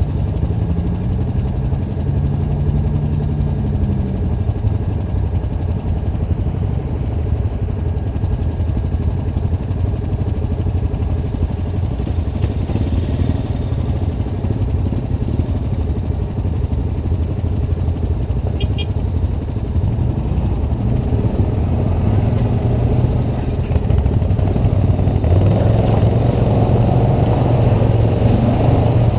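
ATV engine running steadily while riding, its pitch rising and falling briefly near the start and getting louder over the last few seconds.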